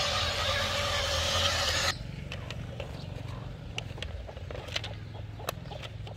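RC dump truck's electric drive motor and gears whirring steadily as it drives, cutting off abruptly about two seconds in. A quieter low hum with scattered light clicks follows.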